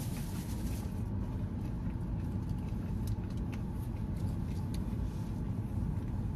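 Steady low hum inside a parked car's cabin, with a few faint light clicks.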